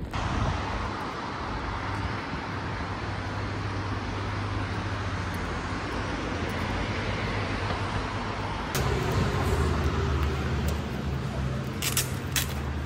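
City street ambience: a steady wash of road traffic noise with a low engine hum. About nine seconds in, it cuts to a different steady low hum, with a few sharp clicks near the end.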